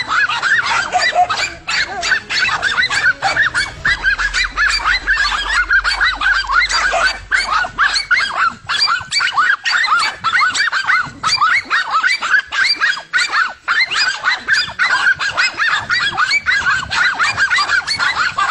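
A flock of fowl honking and squawking, dense and overlapping, short calls coming several a second without a break.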